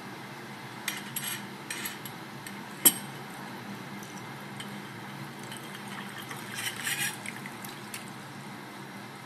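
Water poured from a stainless steel electric kettle into a ceramic mug over a tea bag, splashing in uneven spurts as the mug fills. A single sharp click about three seconds in.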